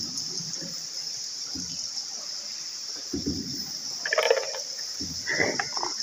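Steady high-pitched chirring of bats roosting on the cave ceiling, with a few splashes of water from about halfway in, the loudest a little past the middle.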